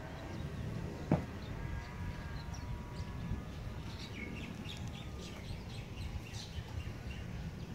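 Small birds chirping outdoors, with a cluster of short high chirps about four to six seconds in, over a steady low rumble. A single sharp click a little over a second in is the loudest sound.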